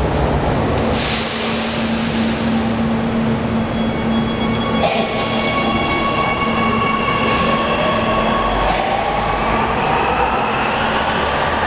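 Ui-Sinseol light metro train running through a subway tunnel: a steady low hum with wheel and rail noise and a brief hiss about a second in. From about two-thirds of the way through, an electric motor whine rises in pitch as a train accelerates.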